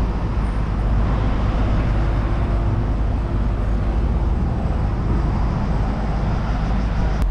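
City street traffic: cars, motor scooters and a bus driving by on the road, a steady rumble without pause.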